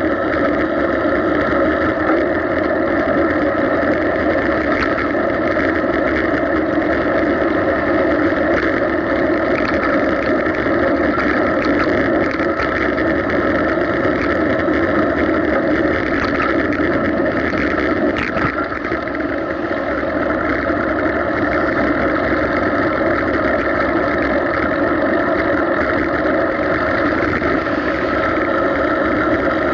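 Steady riding noise from a bicycle-mounted camera while cycling on a paved path: a constant hum with tyre and wind noise, unchanging apart from a brief dip and a click about 18 seconds in.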